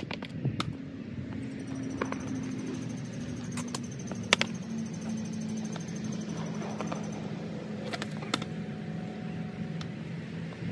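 Skateboard wheels rolling over rough concrete, a steady rumble, with several sharp clacks of the board knocking on the ground, the loudest a little over four seconds in.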